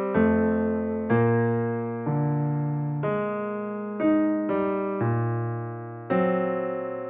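Background music: piano chords struck about once a second, each ringing and fading before the next.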